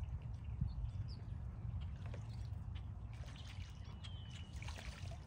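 Domestic ducks splashing and dabbling in a shallow plastic kiddie pool: small splashes and dribbles of water over a steady low rumble. A bird's thin whistled call comes about four seconds in.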